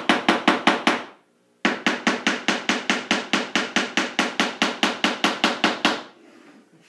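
Hammer tapping a nail into a small wooden block: quick, even light taps about six a second, in two runs with a short break about a second in, stopping about six seconds in.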